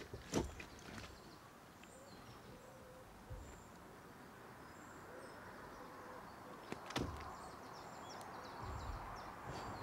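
Quiet outdoor ambience with faint birds chirping, broken by a couple of sharp clicks and a few low thumps.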